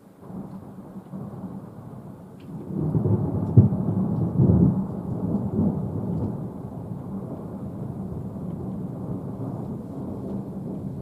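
Thunder rolling in, swelling to its loudest about three to five seconds in with a sharp crack near the peak, then a long low rumble that slowly fades.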